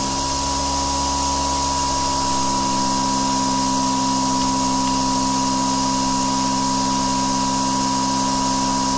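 Electric blade motor of a DIY robot mower unit spinning the cutting knife at a set 4000 rpm. It gives a steady whir made of several even tones that hold one pitch, having just finished spinning up to speed.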